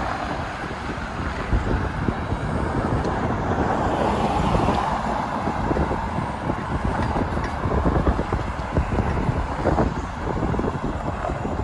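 Wind buffeting the microphone during a bicycle ride, with road traffic going by.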